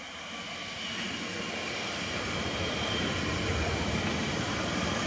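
Bombardier Talent 2 (class 442) electric multiple unit passing through a station without stopping, its rolling noise growing steadily louder as it approaches and goes by. A faint high-pitched whine sits over the rumble.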